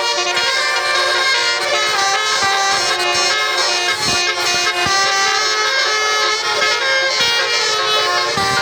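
Bus basuri telolet air horns playing a continuous melody, many steady horn tones changing pitch in quick steps.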